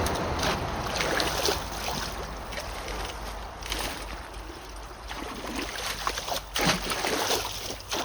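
Water trickling and splashing at a clogged culvert being cleared of sticks and roots, with scattered knocks and one sharper knock about six and a half seconds in.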